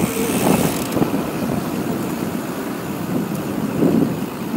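Bicycles rolling on asphalt: a steady rumble of tyres and wind on the microphone, with the fine ratchet ticking of a coasting freewheel hub.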